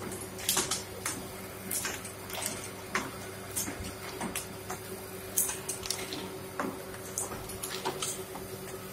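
Fully automatic double-die paper plate making machine running: a steady motor hum with frequent irregular clicks and knocks from the pressing dies and plates.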